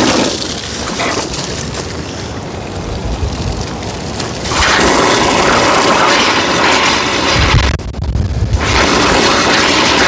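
Hose water spraying out of a Honda VF1000's open thermostat housing and splashing over the engine as its cooling system is flushed of old coolant and muck. The spray gets louder about halfway through and breaks off for about half a second near the end before resuming.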